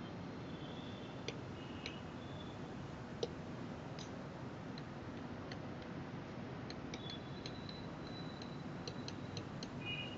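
Quiet writing sounds over steady room hiss: scattered sharp clicks and taps of a pen, with a few brief high squeaks, coming more often near the end.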